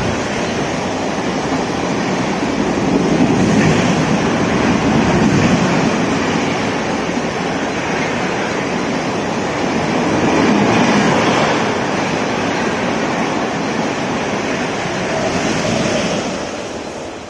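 Coaches of an express train rushing past at high speed: a steady roar of wheels on rail and air, swelling and easing a few times, then dying away near the end as the last coach clears.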